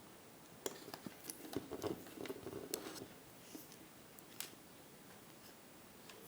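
Faint clicks and rustling from small electronic parts and meter test probes being handled on a work surface while resistors are measured: a busy run of small clicks in the first half, then one sharp click in the middle.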